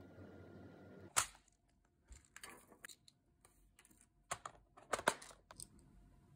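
A soft rustle, then a handful of sharp, irregular clicks and taps from handling nail-art tools and small metal decoration parts, the loudest about a second in and again about five seconds in.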